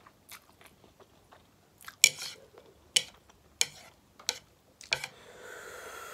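Close-miked eating sounds of a person chewing spicy ramen with sausages: quiet chewing, then five loud, sharp mouth smacks about half a second to a second apart. Near the end comes a breathy hiss of about a second, air drawn in against the chilli heat.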